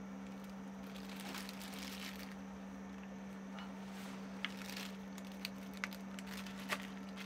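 Plastic zipper bag crinkling as chopped toppings are pinched and shaken out of it by hand, with a few sharp little clicks in the second half, over a steady low hum.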